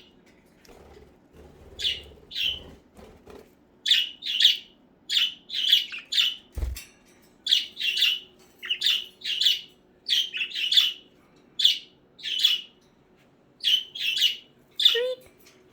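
Budgerigars chirping: a steady run of short, sharp, high chirps, often in quick pairs or threes, one to two groups a second. A single low thump comes about six and a half seconds in.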